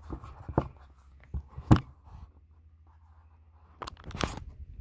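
Handling noises from a phone being picked up and set on a table: a few light knocks and taps, one sharper knock about two seconds in, and a short rustling scrape near the end.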